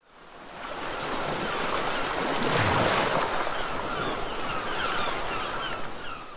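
Steady rush of surf and wind that fades in over the first second, with short high chirps repeating through the second half. It cuts off abruptly at the end.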